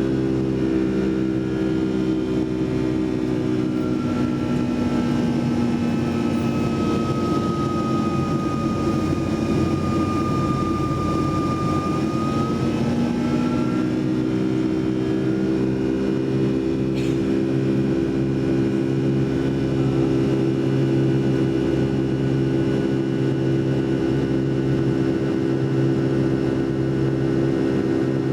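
Boeing 757-200's jet engines droning steadily, heard from inside the passenger cabin. A higher whine sags slightly in pitch and comes back up in the middle, and there is a single short click about two-thirds of the way through.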